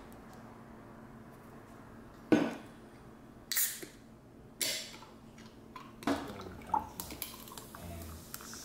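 An aluminium can of grape soda opened: a sharp knock, then two short hisses as the tab breaks the seal. The carbonated soda is then poured over ice into a glass, with small clinks of ice and glass and a fizzing splash.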